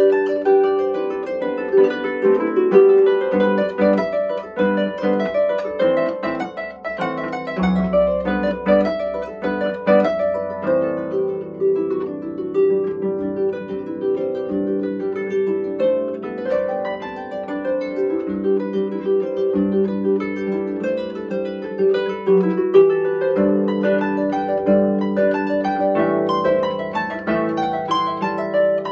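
Solo lever harp played with both hands: a flowing piece of plucked notes and chords, each note ringing on under the next, with deeper bass notes about eight seconds in.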